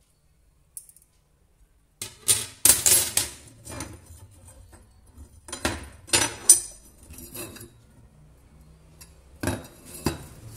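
Metal pipes and thin metal bars clinking and knocking against one another and on a wooden tabletop as they are handled and laid out. The clinks start about two seconds in and come in four groups.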